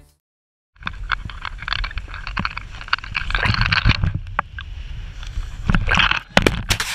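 Wind buffeting an action camera's microphone, with sand scraping and knocking against the camera as a person tumbles down a sand dune. It begins about a second in, after a moment of silence.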